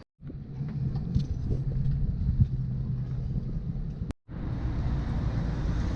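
Low, steady mechanical rumble with a level hum, like vehicle engines and traffic, cut off abruptly for a moment about four seconds in and resuming.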